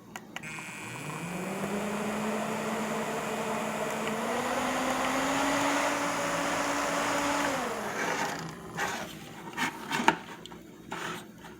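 Litez USB portable table fan switched on with a push-button click: its small motor spins up with a rising hum and a rush of air from the blades, climbing slowly higher in pitch as it runs. Near the end it cuts off and the hum falls away quickly, then a few light handling clicks.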